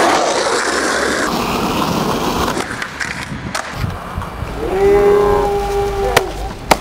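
Skateboard on concrete: wheels rolling and the board knocking, with a couple of sharp clacks near the end. A drawn-out pitched sound rises in about five seconds in and holds for over a second; it is the loudest thing.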